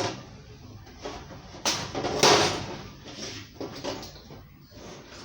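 Household handling noises: a sharp knock at the start, a louder scraping rustle about two seconds in, and several lighter knocks and clatters after it.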